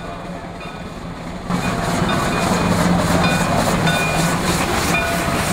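West Side Flume and Lumber Co. No. 9, a Shay geared steam locomotive, standing with steam up: a steady hiss over a low hum, with a regular pulsing of about four beats a second. It gets suddenly louder about a second and a half in.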